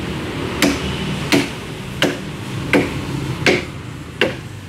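Machete chopping into a green tree trunk: six sharp chops, about one every 0.7 seconds, over a steady hiss of rain.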